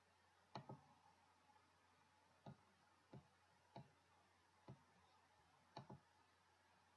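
Computer mouse button clicks: about eight short, sharp clicks over near silence, two of them in quick pairs near the start and near the end.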